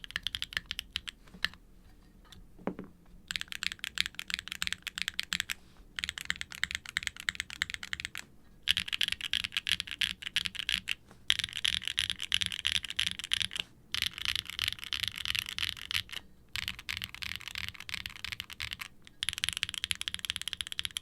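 Fast typing on a Wilba.tech Salvation mechanical keyboard: an aluminum case with an FR4 plate, an internal brass weight and no dampening foam, fitted with factory-lubed Gateron Milky Yellow Pro V3 linear switches and ABS keycaps. Rapid runs of keystrokes are broken by brief pauses every few seconds, with a longer lull about two seconds in.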